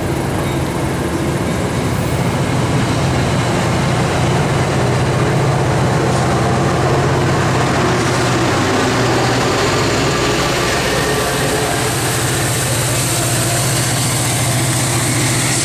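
A train's engine running steadily with a low, even hum over a broad rumble.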